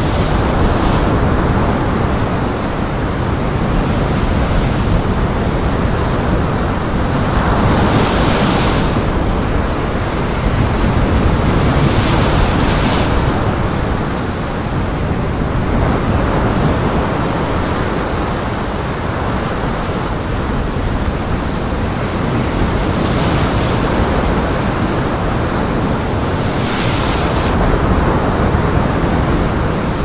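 Rough surf with waves breaking and splashing, over a steady rush of wind. A few louder breaking waves come and go every several seconds.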